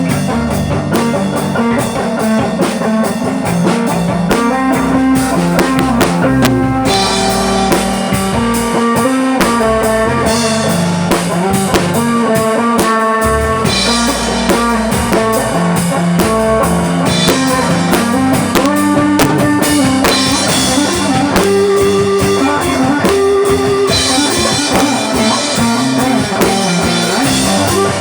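A rock band playing: guitar over a drum kit, with the cymbals louder in some stretches than others.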